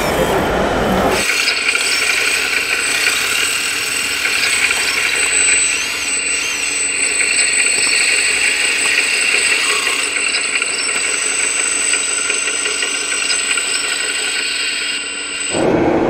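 Radio-controlled scale model excavators at work, giving a steady high-pitched electric motor whine that starts about a second in and holds until just before the end.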